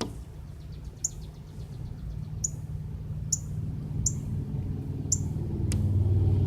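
A small songbird giving short, sharp, high chip calls about once a second, with a sharp tap near the end. A low rumble grows louder over the last second.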